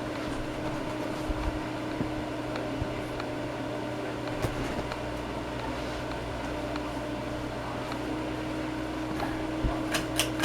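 Tatung hugger ceiling fan running with a steady motor hum. A few sharp clicks come near the end.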